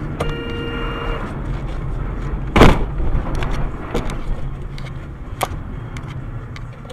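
Car road and engine rumble heard from inside a dashcam car, with a steady pitched tone lasting about a second near the start. About two and a half seconds in comes one loud, sudden thump, followed by a few lighter knocks.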